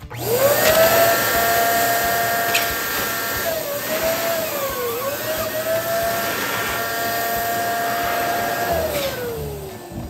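Electric balloon pump running while it inflates a foil balloon: the motor spins up at once to a steady whine, its pitch dips briefly midway, then it winds down near the end.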